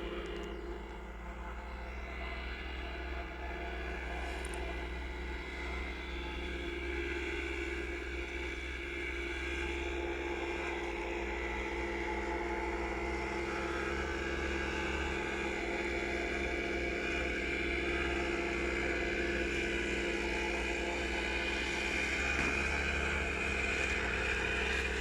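Pit bike engine running steadily, growing slowly louder.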